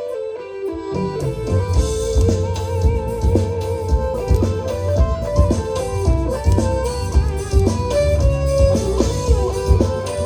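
Live forró band playing an instrumental passage led by guitar, with bass and drum hits coming in about a second in.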